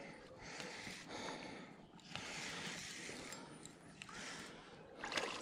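Faint, steady whir of a spinning reel being cranked, reeling in a hooked small catfish.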